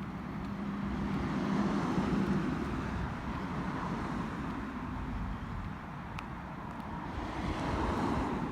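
Road traffic: cars passing, with one swelling up about two seconds in and another near the end.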